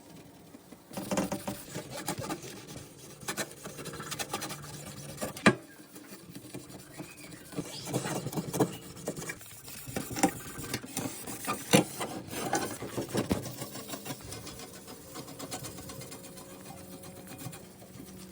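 Rubbing and scraping of hands-on cleaning in a fridge, uneven and stop-start, with several sharp knocks and clicks of things being handled; it dies down toward the end.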